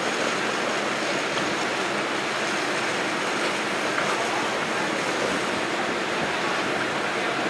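Steady, even background noise of a covered railway station platform, with no single sound standing out.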